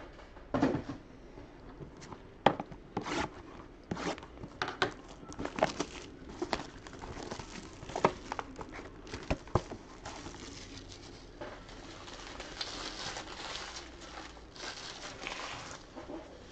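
Trading card pack wrappers being torn open and crinkled, with scattered sharp snaps and clicks of handling, then a steadier run of crinkling near the end.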